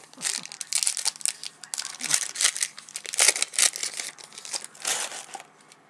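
Wrapper of a 2007 Topps football card pack being torn open and crinkled: a run of sharp crackling rustles that stops near the end.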